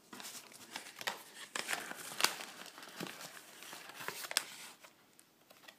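Paper being handled, rustling and crinkling as a string of irregular crackles and soft taps that dies down about five seconds in.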